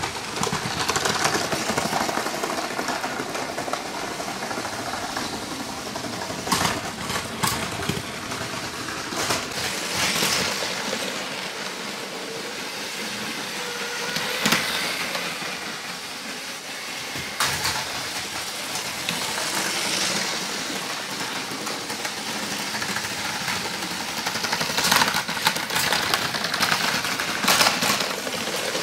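LEGO Power Functions train motors whirring as toy trains run on plastic track, with occasional sharp clicks and rattles from the wheels and cars.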